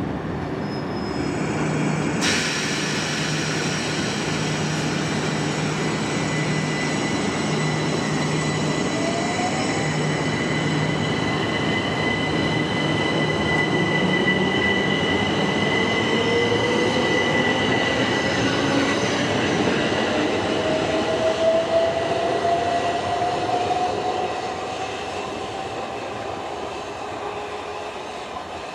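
Southeastern Class 375 Electrostar electric multiple unit pulling away from the platform. A set of steady high electrical tones cuts in suddenly about two seconds in. Later the traction motor whine rises slowly in pitch as the train accelerates, and the sound fades near the end.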